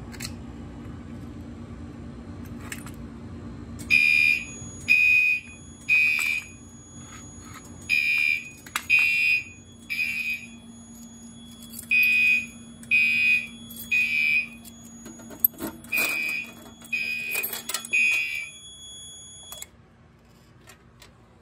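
Fire alarm horn on an FCI FC2224 panel sounding in the temporal-3 evacuation pattern: groups of three half-second high-pitched beeps, each group followed by a longer pause, four groups in all. It starts about four seconds in and stops shortly before the end, over a faint steady high whine. The pattern signals that the panel has gone into alarm after a pull station was key-activated.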